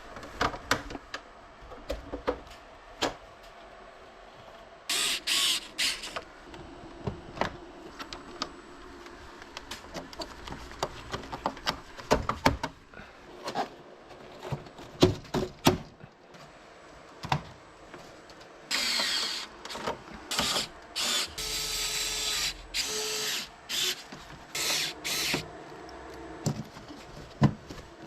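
A power screwdriver whirring in short bursts, once about five seconds in and several times in the second half, among many clicks and knocks of air conditioner parts being handled.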